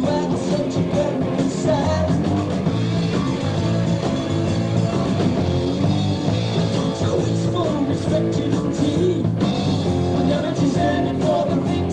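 Rock band playing a song live: electric guitar, bass and drums with a sung vocal, steady and loud throughout.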